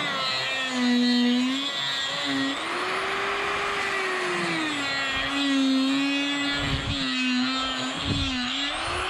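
Corded electric die grinder whining as a 3/4-inch Saburrtooth eye-cutter burr cuts into green, frozen wood. Its pitch sags each time the burr bites in and rises again as the pressure eases.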